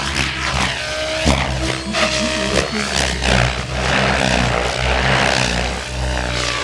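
Compass Cronos 700 RC helicopter flying 3D aerobatics: the rotor blades' whirring chop and the motor's whine are heard together, their pitch shifting up and down as the helicopter manoeuvres.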